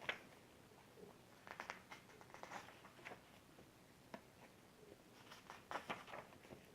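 Faint paper rustling and light taps of a comic book being handled, its pages turned, in scattered small bursts.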